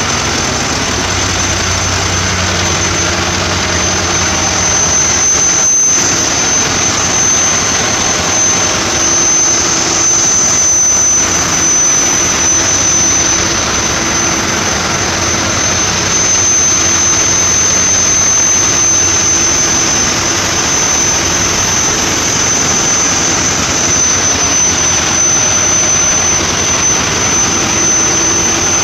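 Loud, steady din of a ship's engine room with a large marine diesel engine running, and a constant high-pitched whine over it.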